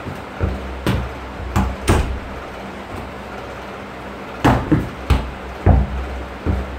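Thuds of a football being kicked and striking the wall and carpeted floor, mixed with bare feet landing: sharp knocks in two bunches, three about a second in and four a few seconds later.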